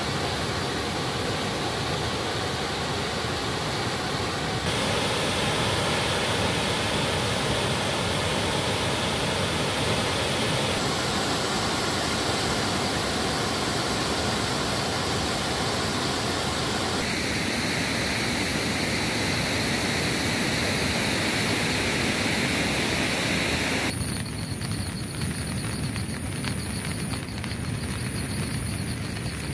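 Water rushing steadily through the open spillway gates of a dam in flood release. About 24 seconds in it drops to a quieter, thinner steady rush.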